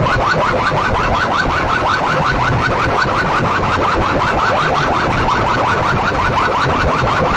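An alarm-like electronic effect played loud through banks of horn loudspeakers: a fast, steady run of short rising chirps, about five a second, over a low rumble.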